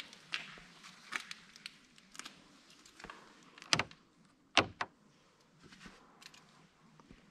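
Footsteps and light handling clicks, then two loud sharp clunks a little under a second apart near the middle, with a few faint clicks after.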